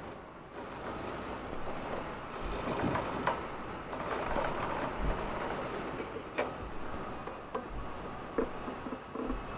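Small RC servo whirring through its gears in short stretches of about a second as it swings the rudder back and forth, with a few sharp clicks.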